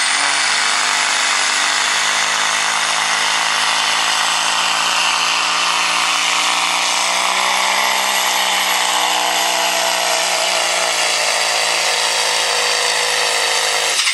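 Semi truck's diesel engine at full throttle pulling a weight-transfer sled, with a loud high turbo whistle over the engine. The engine's pitch sinks in the second half as it lugs down under the growing load.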